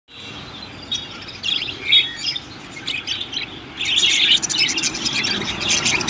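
A cage of budgerigars chirping and chattering, many short calls overlapping, getting busier and louder about four seconds in.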